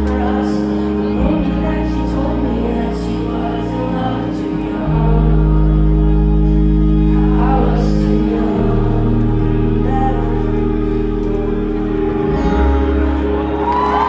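Live band playing the closing bars of a pop song in a concert hall, with acoustic guitar, electric guitars and drums. Long held chords sit over a bass that changes note every three to four seconds, with some singing over the top.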